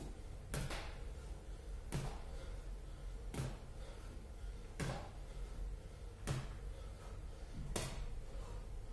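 Six dull thuds, about one every second and a half, as the body, legs and arms come back down onto the gym floor at the end of each V-sit-up rep. A steady low hum runs underneath.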